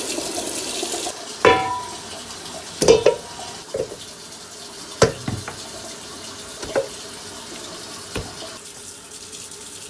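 A kitchen tap runs onto raw pork trotters in a stainless-steel sink for about a second, then stops. After that come about half a dozen separate knocks as the trotter pieces are dropped into a stainless-steel bowl, a few of them with a brief metallic ring.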